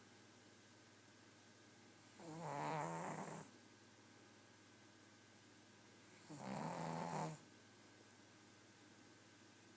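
Pug snoring: two snores, each about a second long and about four seconds apart.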